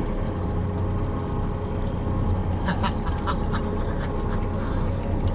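Boat's outboard motors running slowly with a steady low hum, and a few short squeaky clicks about three seconds in.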